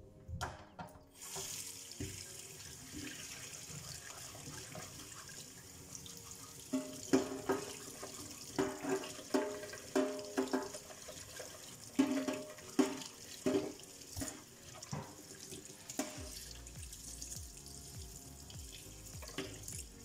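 Kitchen tap running steadily into a stainless steel sink as a dishwasher's mesh filter is rinsed and scrubbed with a sponge under the stream.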